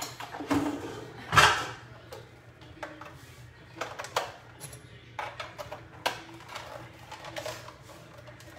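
Scattered knocks and clicks of kitchen handling as an electric hand mixer is fetched and readied over a steel mixing bowl, the loudest knock about a second and a half in.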